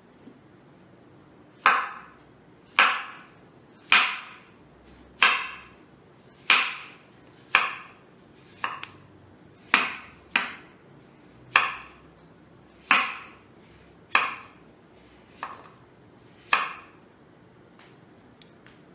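Large kitchen knife chopping slices off a piece of raw papaya, about fourteen sharp chops at a steady pace of roughly one every second and a bit, each with a short ringing tail.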